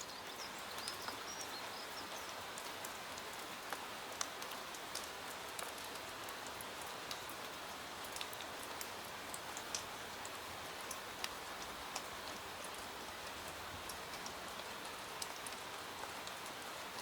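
Steady rain ambience: an even hiss of rainfall with many scattered sharp clicks of drops or crackles over it.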